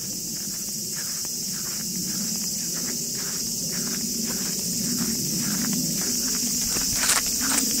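Steady high-pitched drone of summer cicadas in the trees, with footsteps through grass about twice a second, a couple of them louder near the end.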